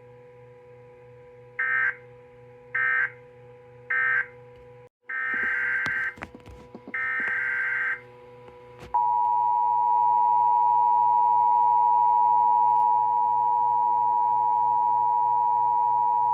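Emergency Alert System signalling. It starts with three short, screechy digital data bursts, then two longer ones. About nine seconds in, the steady, loud two-tone EAS attention signal begins. Together they mark the end of one alert and the start of the next. A low steady hum runs underneath.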